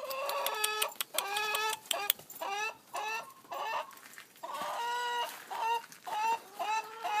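A hen clucking in a long run of short calls, two or three a second, with a brief pause about four seconds in.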